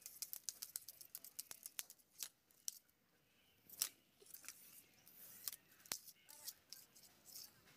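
Faint, irregular clicks and ticks of a cat batting and dragging a twig on a painted step floor, several a second at first and sparser later, with a louder tick about four seconds in and another about six seconds in.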